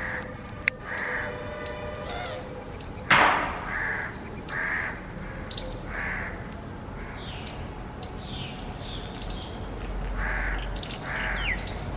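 Birds calling repeatedly outdoors, short calls a second or more apart, with thinner high chirps and a falling whistle later on. A sharp click comes just under a second in, and a louder knock about three seconds in.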